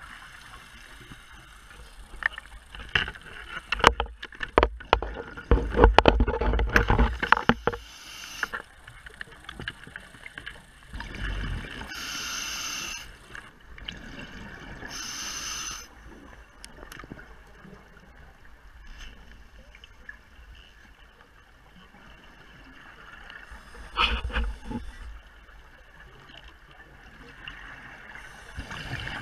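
Scuba diver breathing through a regulator underwater: bursts of exhaled bubbles crackling and rumbling past the camera, with several hissing breaths in between.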